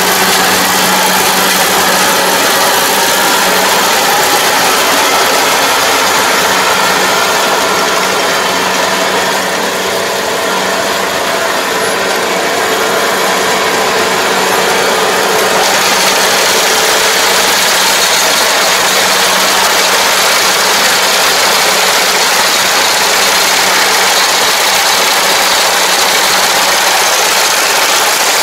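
Kubota combine harvester running steadily as it works through a rice field: a constant engine hum under the rush of its cutting and threshing machinery. It gets a little louder and brighter about halfway through.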